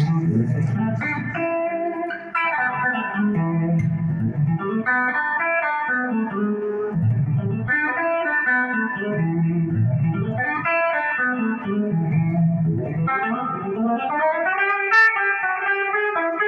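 Stratocaster-style electric guitar played lead: a steady stream of single-note melodic runs up and down the neck, with lower notes ringing underneath.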